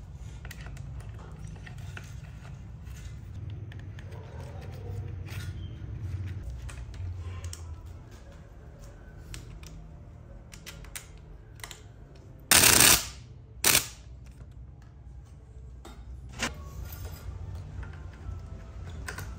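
Small clicks and taps of plastic and metal parts being handled as a brush cutter's throttle trigger grip and cable are fitted to the handlebar, over a low steady hum. About halfway through come two short, loud noises about a second apart.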